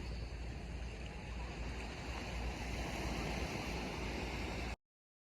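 Wind buffeting the microphone over the wash of the sea, cutting off abruptly near the end.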